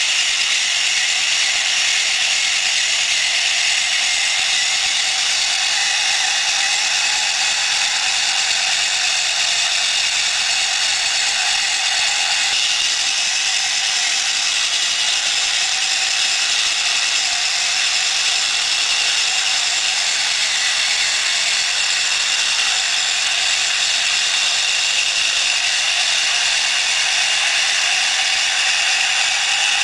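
Drive and chipboard-block tracks of a prototype model crawler tractor running steadily as it crawls: a continuous mechanical running noise at an even level.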